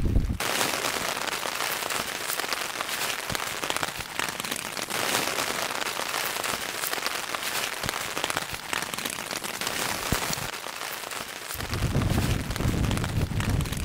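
Rain falling on moorland grass and a small pool: a dense hiss of drops with many separate fine ticks. Wind buffets the microphone with a low rumble at the very start and again near the end.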